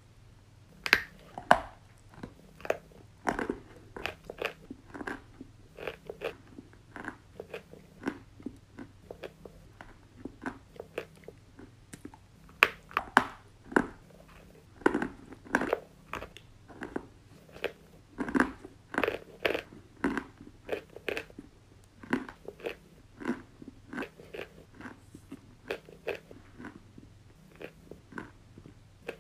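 A person biting and chewing white chalk sticks: a run of sharp, dry crunches at an irregular pace of about one or two a second, the hardest bites snapping loudest.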